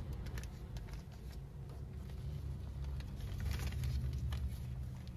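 Newspaper wrapping and a folded banana leaf crinkling and rustling in irregular crackles as a food parcel is unwrapped by hand, over a steady low rumble.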